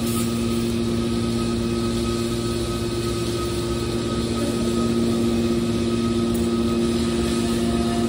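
Steady hum of an electric motor running unloaded: a low drone with a couple of held tones over a noise haze. The lowest part of the drone drops away about halfway through.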